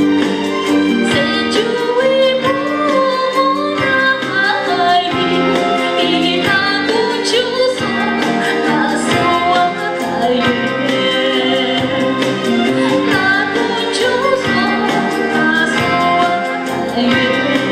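Woman singing into a microphone over instrumental accompaniment with a steady beat.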